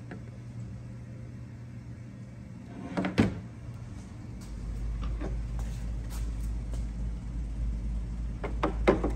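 Plastic third brake light housings knocked and handled. There is one loud clatter about three seconds in and a few lighter clicks near the end, over a low steady rumble that sets in about halfway.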